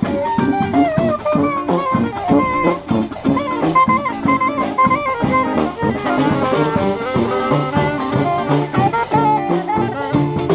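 Street brass band playing on the move: saxophone, French horn and sousaphone over electric guitar and a marching drum, with a steady drum beat.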